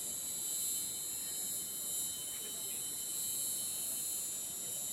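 Steady chorus of insects, a continuous high-pitched trill made of several constant tones that runs without pause.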